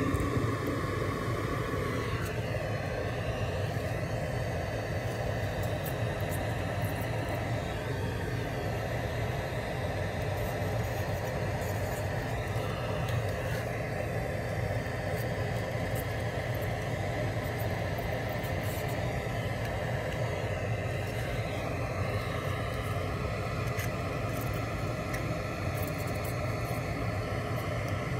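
Steady low rumble and hum of background machinery with a faint hiss above it, unchanging throughout, with a few faint ticks.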